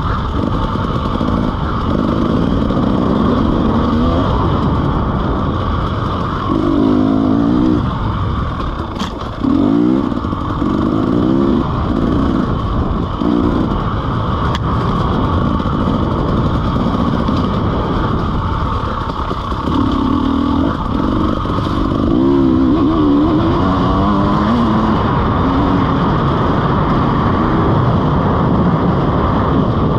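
KTM EXC 300 enduro bike's single-cylinder two-stroke engine running under hard riding, its pitch repeatedly climbing as the throttle opens and dropping back on gear changes and off-throttle moments.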